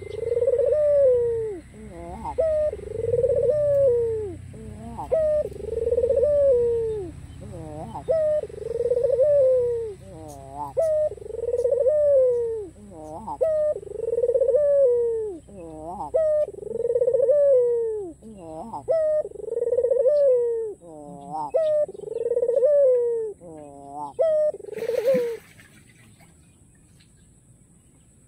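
White collared dove (puter) cooing in a long run: a rolling coo repeated about every two seconds, with quicker stacked notes toward the end, stopping about 25 seconds in.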